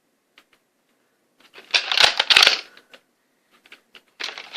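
Plastic clicking and rattling of a Nerf Mega pistol being handled and primed, in two bursts about a second long: one around two seconds in, one near the end.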